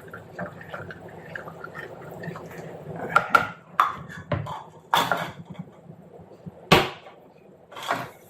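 Kitchen handling noises: several sharp knocks and clinks of utensils and containers being handled, the loudest about two-thirds of the way through, over a low steady background hum.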